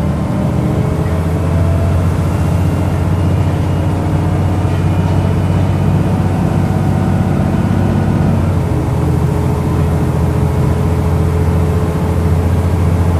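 Rear-mounted diesel engine and drivetrain of a single-deck city bus running under way, heard from inside the passenger saloon as a steady low hum. A faint whine rises near the start, and the engine note changes about eight and a half seconds in.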